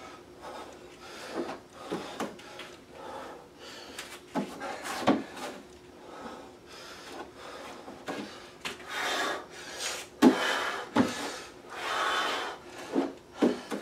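A man breathing hard through push-ups on an aerobic step, with long exhales about nine and twelve seconds in. A few sharp knocks sound throughout, the loudest about five and ten seconds in.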